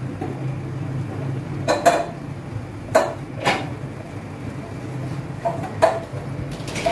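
Metal pots and utensils clinking: about seven short, sharp knocks with a brief ring, scattered unevenly, over a steady low hum.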